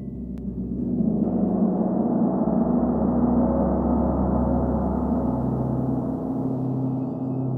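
Large chau gong played with two felt mallets. Its many overlapping tones swell about a second in into a sustained, shimmering wash over a deep low hum.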